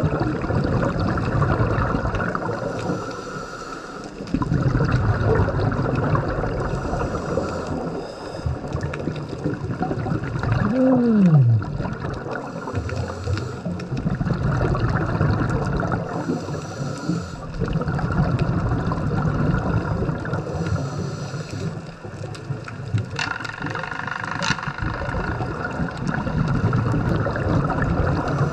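Muffled water gurgling and bubbling as heard underwater on a scuba dive, swelling and easing in stretches of a few seconds, with a short falling tone about eleven seconds in.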